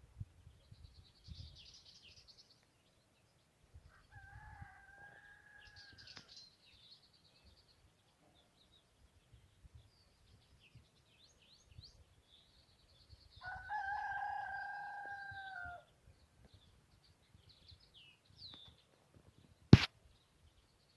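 A rooster crowing twice: a faint crow about four seconds in, then a louder crow of about two seconds near the middle. Small birds chirp throughout, and a single sharp click near the end is the loudest sound.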